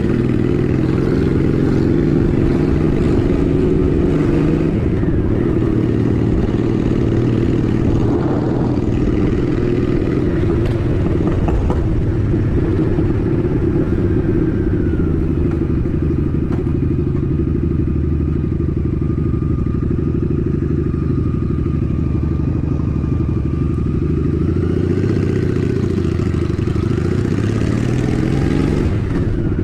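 Honda Shadow 750 ACE's V-twin engine running steadily while the motorcycle cruises at town speed, its pitch changing little, with a slight rise and fall near the end.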